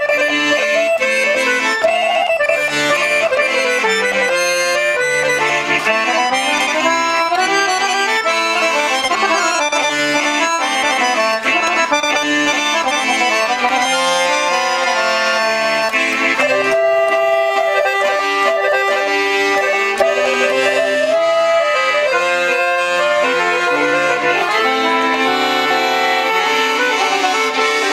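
Dallapè piano accordion played: a quick stepping melody on the right-hand keys over slower-changing bass and chord notes, as a sound test of the instrument after tuning and servicing.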